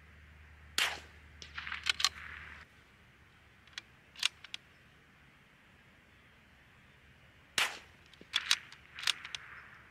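Two .22 LR bolt-action rifle shots, about a second in and about seven seconds later, each a sharp crack followed within a second by a quick run of metallic clicks as the bolt is worked.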